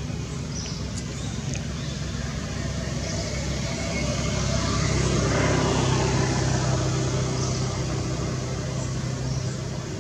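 A motor vehicle passing by: a steady engine drone that grows to its loudest about halfway through and then fades, with a few faint high chirps over it.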